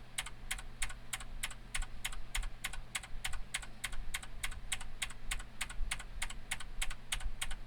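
Motospeed CK99 mechanical keyboard with blue optical switches being typed on: a steady run of sharp clicks, about four a second. Blue switches click by design, and this keyboard is very noisy.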